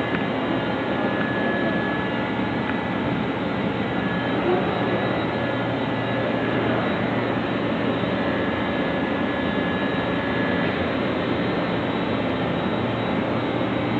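CNC plasma cutter running: a steady hissing roar, with a faint high tone held through most of it.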